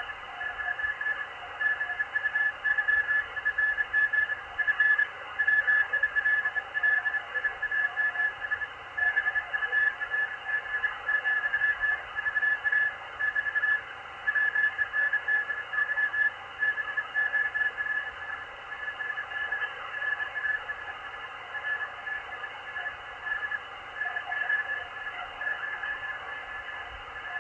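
Morse code (CW) signal on the 20-metre amateur band, heard through a Machilite DSP SDR receiver: a single steady-pitched beeping tone keyed on and off in dots and dashes, over band hiss.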